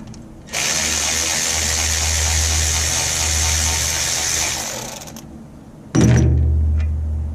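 Cordless power tool running in two runs while backing out brake caliper bolts: one of about four seconds starting half a second in, then a second run that starts abruptly about six seconds in.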